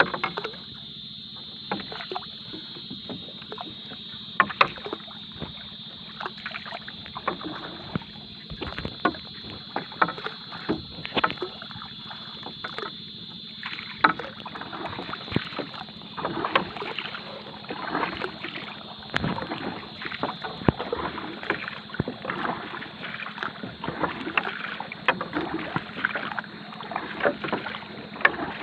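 Small fishing boat out on the sea: irregular knocks and water splashing against the hull, growing busier about halfway through.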